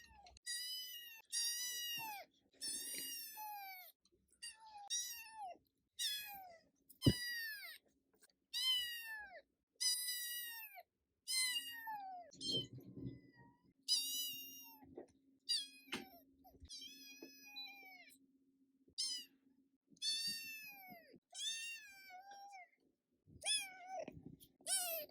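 Scottish Fold kitten meowing over and over: a long string of short, high-pitched meows, about one a second, each falling in pitch.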